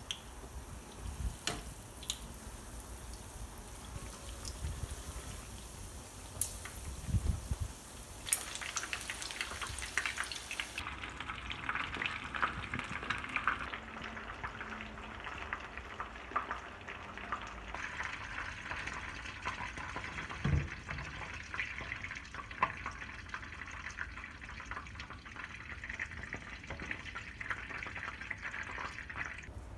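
A few knocks and clicks of kitchen handling, then from about eight seconds in, food frying in hot oil: a steady crackling sizzle.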